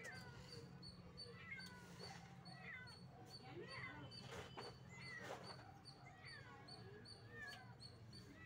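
Faint animal calls: short high cries that slide in pitch, repeating about once a second, over a steady low hum.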